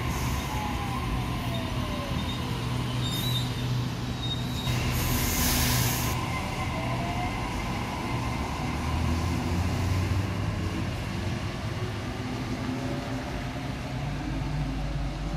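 Sydney Trains double-deck electric trains running along a station platform: steady wheel-on-rail rumble with faint gliding motor whines. A brief high squeal comes about three seconds in, and a short hiss about five seconds in is the loudest moment.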